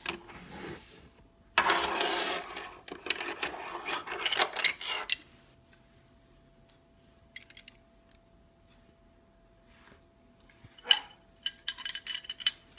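A cardboard box of baking soda being handled and scooped from with a plastic measuring spoon: several seconds of scraping and rustling with sharp clicks, a quiet pause, then another short run of clicks and scrapes near the end.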